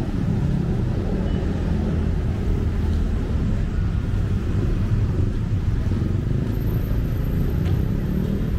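Steady rumble of city road traffic, cars and motorcycles running along the street.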